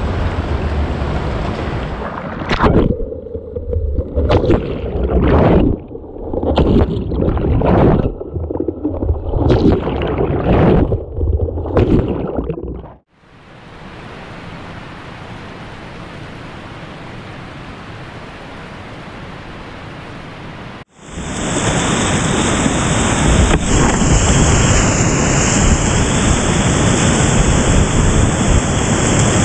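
Whitewater kayaking water sounds: for the first dozen seconds, irregular splashes and sloshing about once a second; then several seconds of quieter, even water hiss; then, from about two-thirds of the way in, the loud steady rush of a rapid close to the camera.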